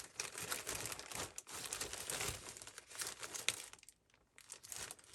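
Paper ephemera and bags rustling and crinkling as someone rummages through them by hand, with a brief lull near the end.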